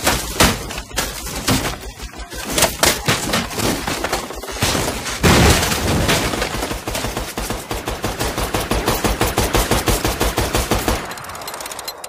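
Sustained rapid machine-gun fire, a long unbroken run of shots from a heavy truck-mounted gun, with a heavier blast a little past five seconds in. The firing cuts off about a second before the end.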